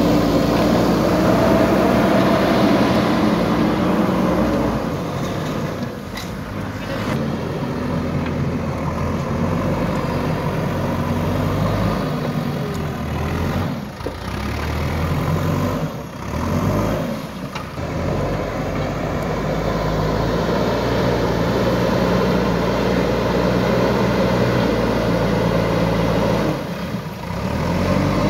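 JCB 3DX Super backhoe loader's diesel engine running as the machine scoops and carries earth with its front loader bucket, the engine speed rising and falling with the load.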